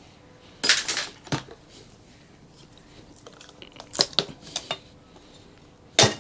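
Scattered metallic clinks and clatters from metal parts being handled while a power amplifier is dismantled: a few sharp knocks about a second in, more around four seconds in, and one loud knock near the end.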